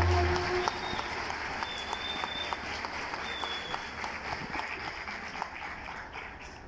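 The band's final held chord, with accordion, cuts off about half a second in, and an audience applauds, the clapping slowly dying away. Two short high whistles ring out in the middle of the applause.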